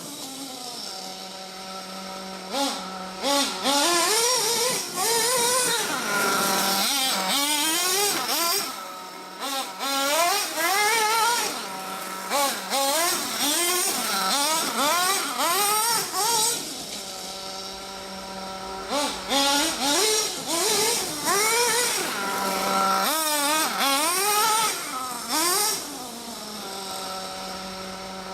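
RB K10 nitro engine of an Ofna Dominator RC truck, settling to a steady idle several times and revving in repeated throttle bursts, its pitch climbing and falling with each burst.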